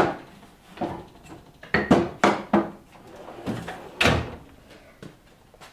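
Hand hammers knocking and clanking as they are set back into a steel tool-chest drawer, then the drawer sliding shut, a string of separate metallic knocks with the sharpest right at the start.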